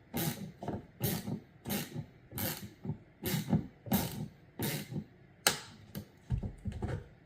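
Torx driver working a T20 bolt loose on a car door lock cylinder, with a short click or scrape repeating about every two-thirds of a second as the tool is turned stroke by stroke.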